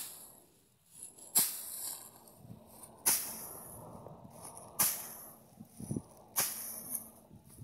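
Wooden hand flail beating a pile of dry pods and stalks on a plastic tarp, threshing by hand: five sharp cracks, about one every one and a half seconds, each followed by a short dry rustle.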